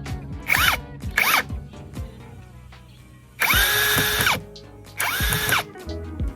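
Ingco brushless cordless impact driver/drill run in four trigger pulls. Each pull is a whine that spins up, holds and winds down. The first two are short, the third lasts about a second and the fourth about half a second.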